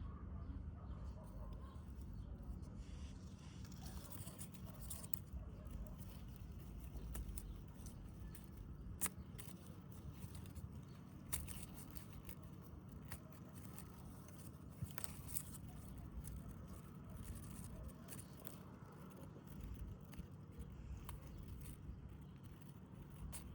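Long grass rustling and crackling, with scattered sharp snaps, as a cat bats at and pulls on the blades, over a steady low outdoor rumble.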